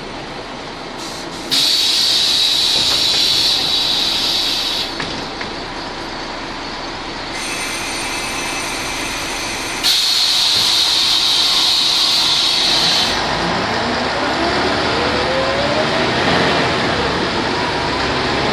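Aboard a 1991 Ikarus 280 articulated bus: two sudden blasts of compressed-air hiss from its pneumatic system, about a second and a half in and again near ten seconds in, each lasting about three seconds, over the running Rába D10 diesel. Near the end a rising whine as the bus pulls away.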